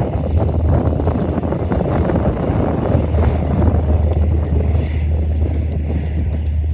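Airplane engine noise: a loud, steady, low rumble.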